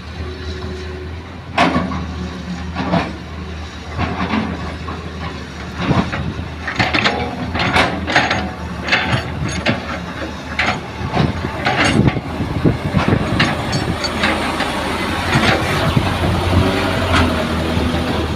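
Hitachi excavator's diesel engine running steadily. Over it come repeated sharp clanks and rattles, thickest through the middle: sand and gravel being dug and dropped into a dump truck.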